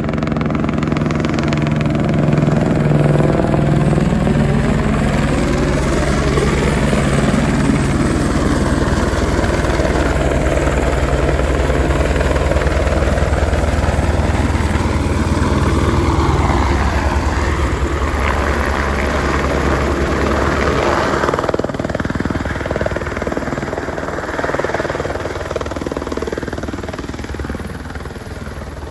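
A helicopter flies in close and lands on snow, its rotor and engine loud and steady. The pitch glides in the first few seconds as it approaches. The deepest part of the sound drops away suddenly about three-quarters of the way through, and the noise eases toward the end as it settles.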